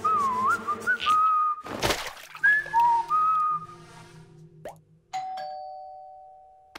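Cartoon soundtrack: a whistled tune over light musical backing, a loud whoosh about two seconds in, and a few more whistled notes. Near the end a two-note ding-dong doorbell chime rings out and fades slowly.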